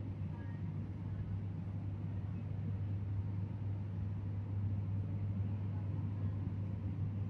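Steady low hum with a faint even background noise, unchanging throughout.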